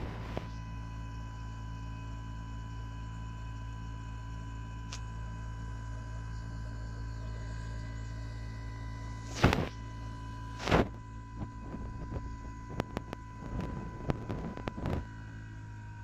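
Outdoor unit of a Gree Versati III 8 kW heat pump running during a defrost, with a steady low hum and a steady high whine. About nine and a half and eleven seconds in come two loud, short bursts of noise, followed by a scatter of clicks and knocks.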